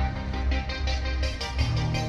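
Music with a steady beat and held bass notes; the bass line changes to a new note near the end.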